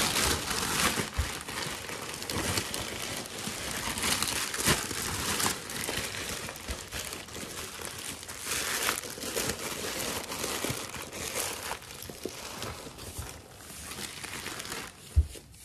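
Plastic wrapping crinkling and rustling as it is pulled off a boxed subwoofer and handled, with a low thump near the end.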